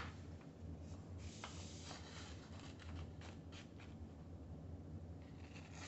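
Faint rustling and light crackles of large sheets of drawing paper being lifted and handled, over a low steady hum.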